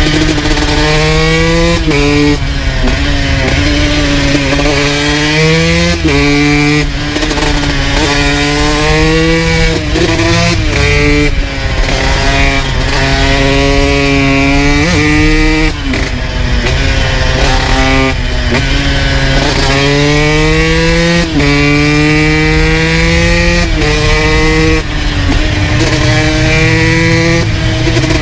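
2002 Honda CR125 single-cylinder two-stroke engine, through an FMF full exhaust, being ridden hard. It revs up again and again, its pitch climbing and then dropping suddenly every one to two seconds as the gears change or the throttle closes.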